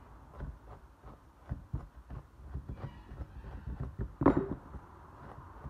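Dematting comb being dragged through the long synthetic fur of a model dog head's wig: irregular soft, dull strokes a few times a second, with one louder knock about four seconds in.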